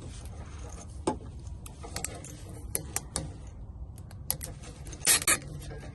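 Light scattered clicks and rattles of hands working the plastic quick-connect plug on a reverse-alarm speaker's wiring under a van's rear bumper, with a brief louder scrape about five seconds in.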